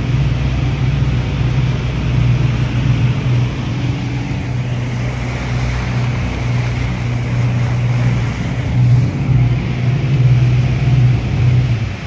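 Twin outboard motors running steadily at speed, a constant low drone, with the rush of water and wind around the hull of the moving speed boat.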